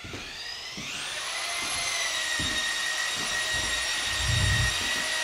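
A high-speed electric motor, from a power tool or vacuum on the renovation site, spinning up over about a second and a half and then running steadily with a high whine, with low thumps underneath.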